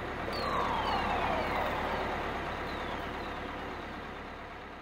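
Vehicle sound effect for the flying toy bus: a steady engine rumble with several falling whines that begin about half a second in, fading away near the end as the bus comes to a stop.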